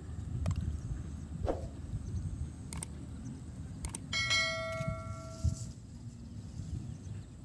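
Subscribe-button animation sound effects: a few sharp mouse-style clicks, then a notification bell ding about four seconds in that rings for a second and a half. Under it runs a constant low rumble of wind on the microphone.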